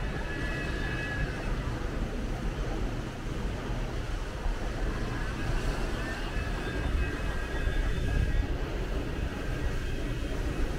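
Steady low rumble of city street traffic heard from a moving bicycle, with faint high squealing tones near the start and again about halfway through.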